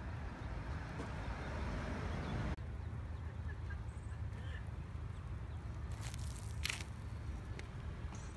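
Outdoor background noise: a steady low rumble that drops off sharply about two and a half seconds in, a few faint high chirps in the middle, and two sharp clicks near the end.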